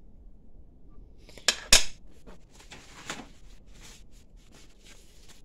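A small steel bearing and needle-nose pliers set down on a sheet-metal work surface: two sharp metallic clacks about a second and a half in, then lighter clicks and rustling.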